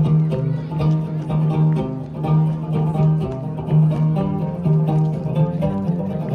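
Tibetan gorshey circle-dance music led by a plucked string instrument, a quick run of notes over a steady, repeating beat.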